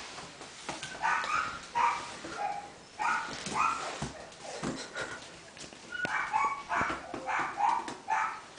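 Two puppies play-fighting, yapping with short high-pitched calls that come in quick runs, busiest about a second in, around three seconds in, and again from about six seconds on.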